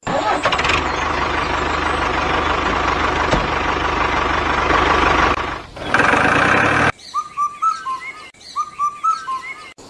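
An engine runs steadily for about five and a half seconds, then cuts off. A short, louder stretch of noise follows about six seconds in. Then a small bird chirps in two quick runs of short notes.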